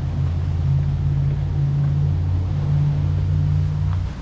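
Loud, steady low rumble with a hum of several low tones and no other clear event.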